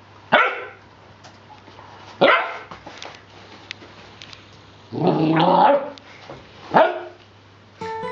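Nine-week-old Rhodesian Ridgeback puppy barking in play: three short sharp barks about two seconds apart, and a longer, drawn-out bark about five seconds in. A faint low hum runs underneath, and plucked-guitar music starts near the end.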